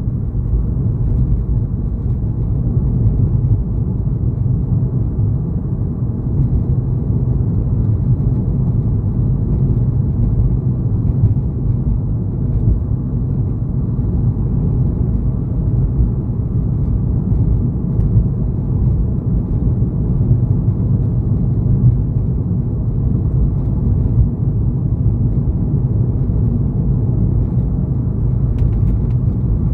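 Car driving at road speed: a steady low rumble of tyres on the road and engine.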